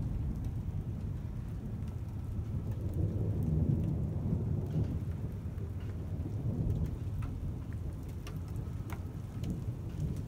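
Rain falling, with a low rumble of thunder that swells about three to four seconds in. Scattered sharp taps of drops hitting something close by, mostly in the second half.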